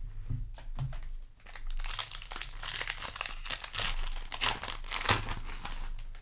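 Foil booster pack wrapper crinkling as it is handled and torn open: a few light crackles at first, then dense crinkling from about two seconds in until near the end.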